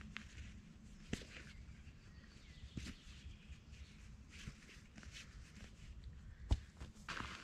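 Faint rustling of a stuff sack being handled as a sleeping pad is worked out of it, with a few scattered sharp clicks and taps, the loudest about six and a half seconds in.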